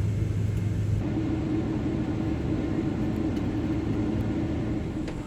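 Steady low rumble and hum inside the cabin of a Boeing 777-200ER on the ground after pushback, the engines started. The hum shifts abruptly to a higher pitch about a second in.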